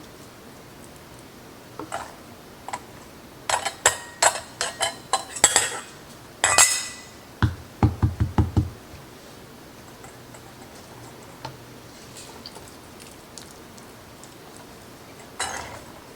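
A metal spoon and strainer clinking and scraping against a pot and glass canning jars as beans and their juice are ladled into pint jars. A cluster of clinks and a couple of short scraping swishes come in the first half, then a quick series of dull knocks, then only an occasional clink.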